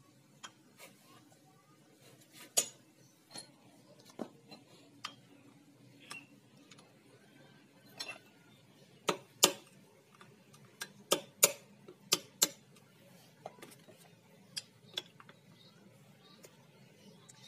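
Irregular sharp metallic clicks and clinks of a screwdriver and pliers against the steel gears and shafts of a stripped-down Yamaha Vega ZR engine crankcase. The loudest run of clinks comes about halfway through.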